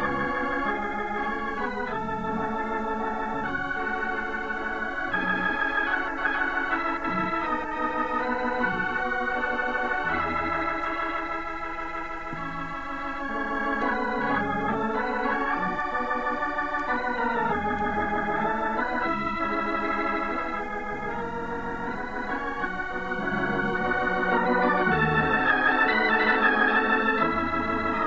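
Organ music playing slow, held chords that shift steadily, swelling a little louder near the end.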